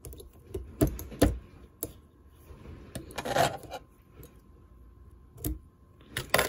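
Metal fly-tying tools handled at the vise while the thread is whip-finished: a handful of sharp clicks and taps, with a short rustle about three seconds in.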